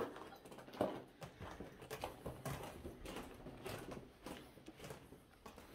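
Footsteps crunching and scuffing on a grit- and debris-strewn floor: a faint, irregular series of steps.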